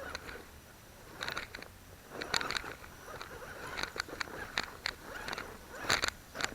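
Axial Wraith RC rock crawler's tyres crunching and scraping over rocks and leaf litter in irregular bursts, with sharp clicks and knocks as it crawls over obstacles.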